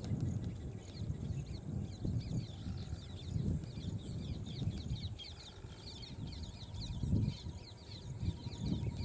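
Birds chirping in rapid short, high, downward-sweeping calls, several a second, over low irregular rustling and soft thuds.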